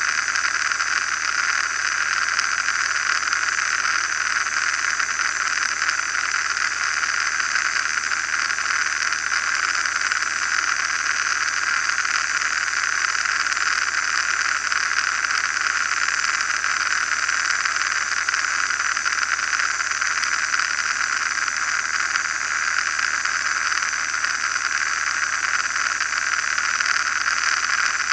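Steady in-cockpit noise of an RV-9A light aircraft in cruise flight: engine and propeller running, with air rushing over the canopy, unchanging throughout.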